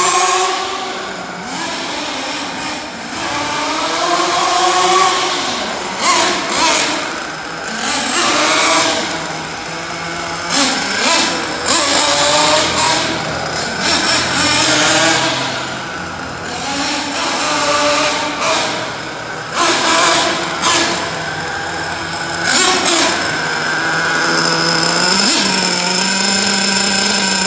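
Kyosho Inferno NEO ST nitro RC truggy's small glow-fuel engine revving up and down over and over as it is driven, its high-pitched note rising and falling. Near the end it settles into a steady idle close by.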